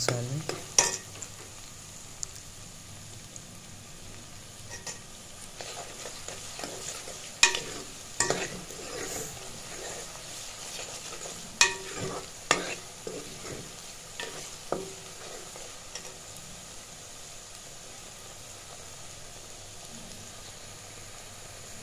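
Chopped onions and garlic sizzling in hot ghee in a metal pot while a steel spoon stirs them, scraping and clinking against the pot several times. The clinks stop after about 16 seconds, leaving a steady sizzle. This is the browning of the onion-garlic base before the spices go in.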